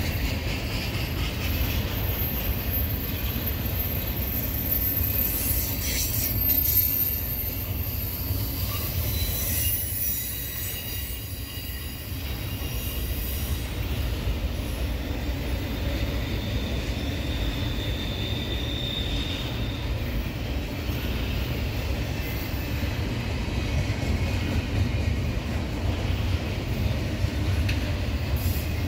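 Double-stack intermodal freight cars rolling past with a steady low rumble. A thin, high-pitched wheel squeal sounds over the first several seconds, and a fainter squeal comes again later.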